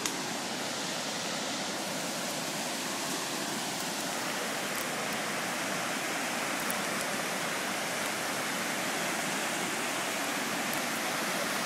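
Steady rush of flowing creek water, an even hiss that grows slightly louder.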